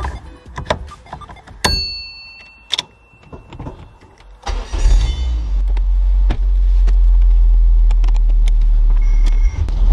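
Toyota 2ZZ-GE 1.8-litre four-cylinder in an MR2 Spyder started about four and a half seconds in, then running with a steady low rumble. Before that come a few clicks and a sharp clunk with a brief ringing.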